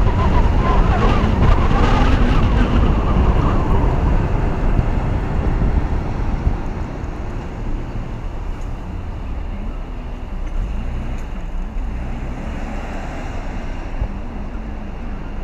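Wind rumbling on the microphone with road noise from a slowly driving car carrying the camera on its roof. It is loudest for the first few seconds, then settles lower and steadier.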